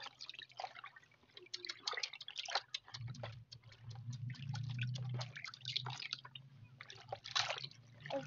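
Quick, irregular drips and small plops of shallow rice-paddy water. A low steady hum joins about three seconds in.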